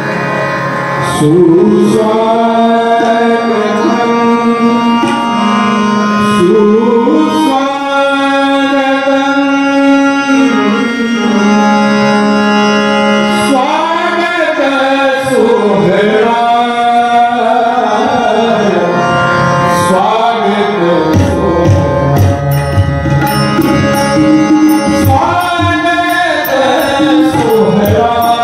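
A man sings a Marathi welcome song (swagat geet) to harmonium and tabla, holding long notes over the harmonium's sustained chords. About three-quarters of the way through, a firmer tabla beat with deep bass-drum strokes comes in, along with steady ticking from small hand cymbals.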